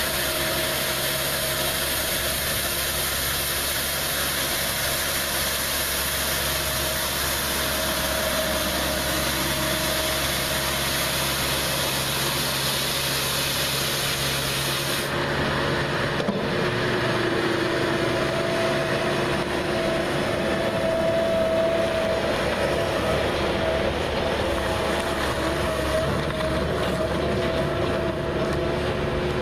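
Skid steer engine running with its hydraulic broom attachment spinning, a steady mechanical drone with a constant whine over a brushing hiss. About halfway through, the high hiss drops away suddenly and the whine shifts.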